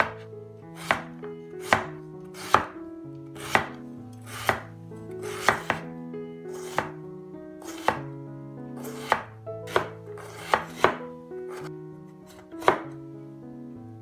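Chinese cleaver chopping beetroot into strips on a wooden cutting board: sharp knocks of the blade striking the board, roughly one a second and unevenly spaced. Soft background music plays underneath.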